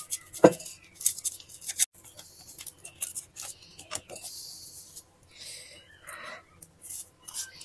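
Small handling sounds of making coffee: a coffee sachet rustling and being torn open and emptied into a ceramic mug, with scattered light clicks and taps of a stirrer against the mug. There is a hissy rustle about two seconds in and another softer rustle near the end.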